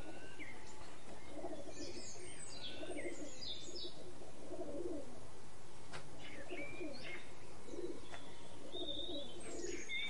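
Doves cooing over and over in low tones, with small songbirds chirping and twittering at a higher pitch; a single sharp click about six seconds in.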